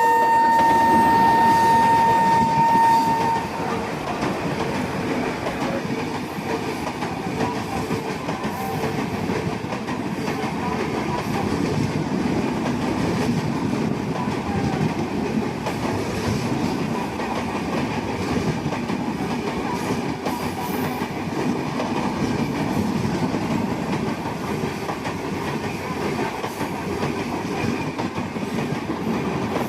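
WAP-7 electric locomotive horn sounding one long steady note that cuts off about three seconds in. After it comes the steady rumbling noise of the train running on the rails.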